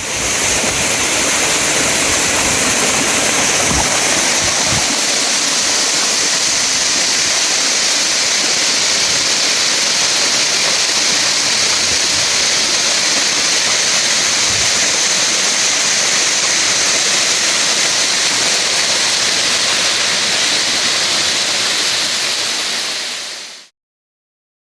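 Lanka Ella waterfall's falling water, a steady, loud rush that fades out quickly near the end.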